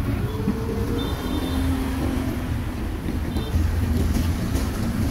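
Busy street ambience: a steady low rumble of motor traffic with a few held engine hums.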